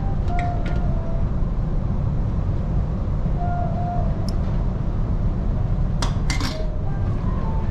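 Metal serving tongs and spoons clinking against buffet dishes and trays, with a cluster of sharp clinks about six seconds in. Under them runs a steady low rumble from the ferry.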